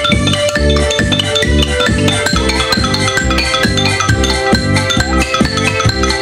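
Xylophone played with two mallets, a quick run of struck notes, over backing music with a steady bass beat of about two pulses a second.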